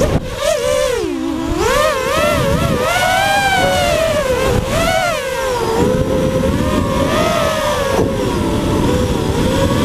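FPV quadcopter's motors and propellers whining, the pitch swinging up and down quickly with the throttle as it swoops and banks, with wind rushing over the onboard camera's microphone.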